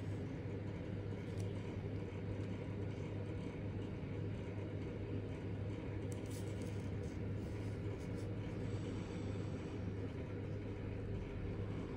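Steady low background hum and rumble, with a few faint light ticks about six to seven seconds in.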